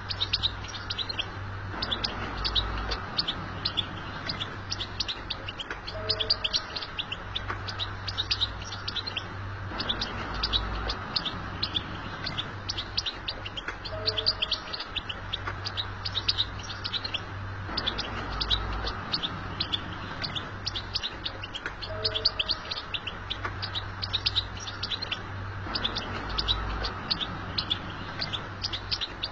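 European goldfinch song: a fast, continuous twittering of short high chirps, with the same passage recurring about every eight seconds as if looped.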